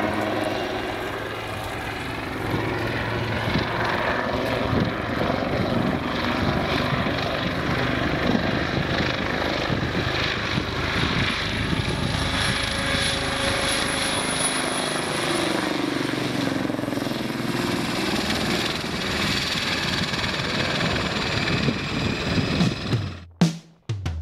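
Military helicopter flying low overhead in an air display, its rotor chopping steadily and its engine note shifting as it passes. It cuts off suddenly near the end.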